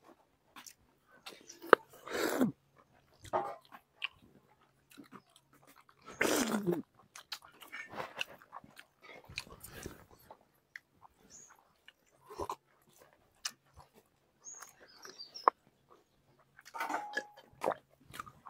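Mouth sounds of people eating chicken on the bone with their hands: soft chewing, biting and lip-smacking clicks, with a couple of louder breathy bursts about two and six seconds in.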